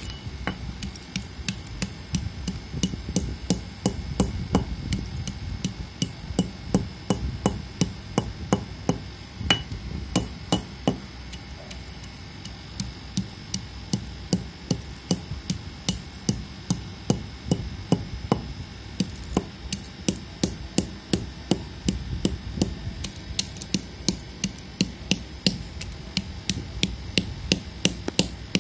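Dry lumps of multani mitti (fuller's earth clay) struck and crushed with a hand-held metal object: a steady run of sharp cracking crunches, about two a second.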